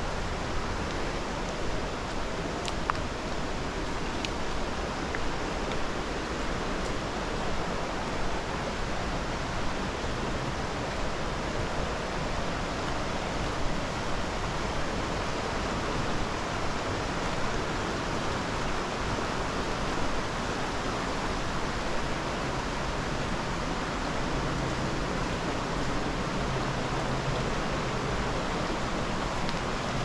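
Steady rush of flowing water from the river and falls. A low steady hum joins near the end.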